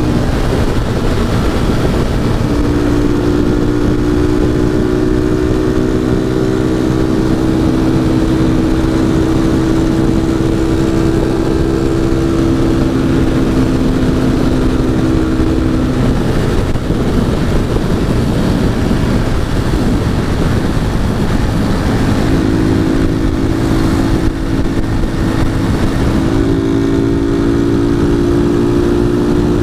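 Carbureted Honda CG Titan 150's single-cylinder engine with a GeMoto aftermarket exhaust, running at a steady cruising speed, with strong wind buffeting the microphone throughout. The steady engine note sinks into the wind noise for several seconds in the middle, then returns.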